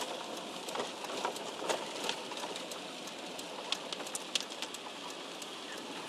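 Light rain on a car's windscreen and roof, heard from inside the car: irregular drop ticks over a soft steady hiss.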